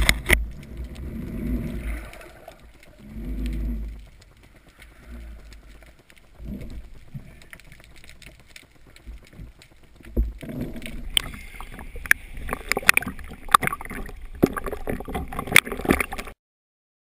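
Water sloshing and gurgling around a spearfisher's camera, with low surges in the first few seconds and a run of sharp knocks and clicks in the last few. The sound cuts off abruptly near the end.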